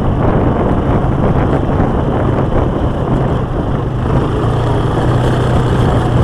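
Quad bike engine running steadily under way along a gravel track, with the rough rumble of the tyres and the ride. The low engine hum firms up a little in the second half.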